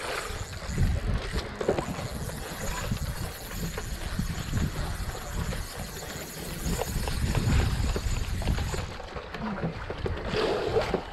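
Wind buffeting the microphone over water sloshing against a small fishing boat's hull, with faint clicks from a spinning reel being wound in to bring up a hooked fish.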